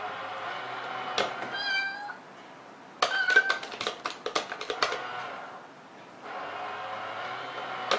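Small motorized cat coin-bank toy whirring as its lid opens, with a short high meow near two seconds in. Then a quick run of clicks and taps lasts about two seconds, and the motor whirs again near the end as the lid lifts once more.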